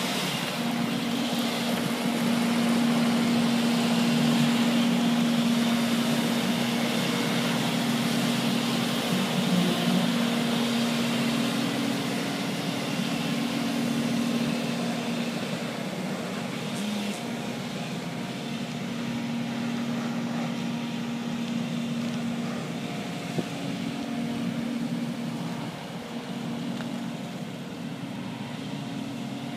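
Disab Tella Disaclean dry vacuum sweeper truck running, a steady droning hum that slowly fades as the truck moves away.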